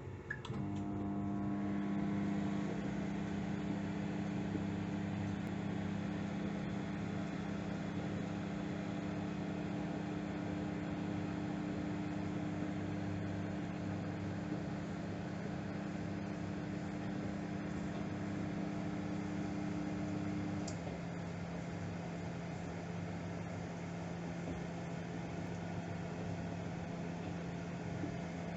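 Microwave oven starting with a click, then running on medium power with a steady humming buzz. About twenty seconds in the buzz drops away and a softer hum carries on, as the magnetron cycles off on the medium setting while the fan and turntable keep running.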